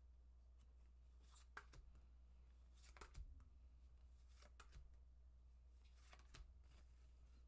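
Near silence with faint soft flicks and rustles of tarot cards being fanned and drawn, a handful of them a second or so apart, over a low steady hum.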